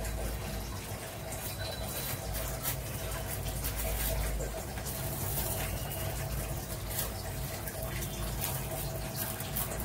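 Paneer paratha sizzling on a hot tava as butter is spread over it with a spoon: a steady hiss with scattered clicks and scrapes of the spoon.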